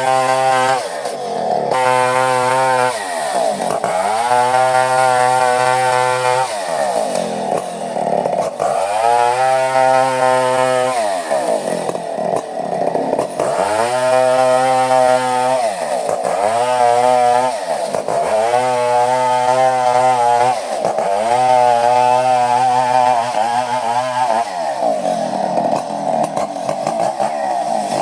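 Chainsaw running hard through coconut-palm wood, its engine note dipping sharply and climbing back again about every two to three seconds.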